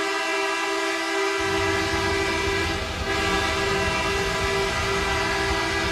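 Goal horn sounding one long, steady, chord-like blast. A low pulsing layer, the start of the goal music, comes in underneath about a second and a half in.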